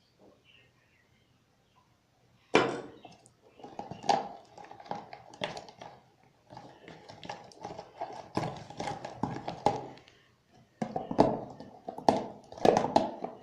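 A spoon stirring slime that is starting to come together from glue and borax water, making irregular sticky clicks and squelches against the bowl. It starts about two and a half seconds in.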